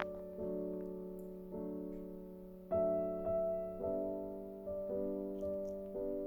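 Background piano music: slow sustained chords, struck about once a second and each left to fade.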